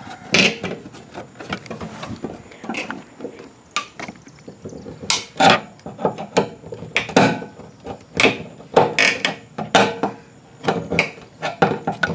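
Fuel pump and sending unit assembly being worked down into a metal fuel tank's opening by hand: irregular clicks, knocks and rattles of plastic and metal parts bumping against the tank and its openings.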